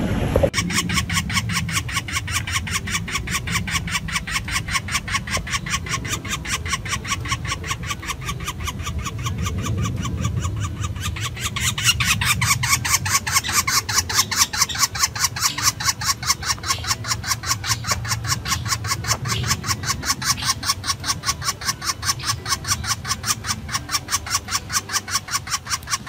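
Woodpecker nestling squawking from its nest hole in a rapid, steady run of sharp repeated begging calls, about three or four a second. The calls start about half a second in and grow louder about halfway through.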